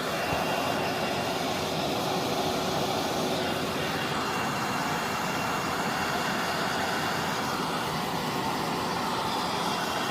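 Handheld hair dryer blowing steadily, a constant airy whir with a faint whine, used to heat the phone's back cover and soften its adhesive so the cover can be pried open.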